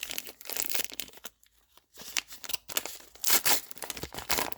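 Foil wrapper of a Pokémon trading card booster pack crinkling and tearing open in uneven bursts, with a short lull in the middle and the loudest rip a little past three seconds in.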